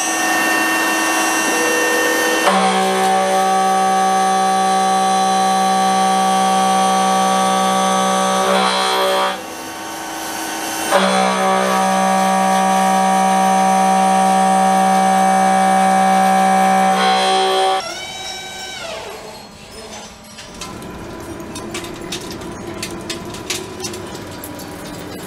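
CNC face mill cutting steel: a steady ringing whine of several tones at once, in two passes that each start and stop abruptly. About three-quarters through, the tone sweeps away and gives way to quieter clicking.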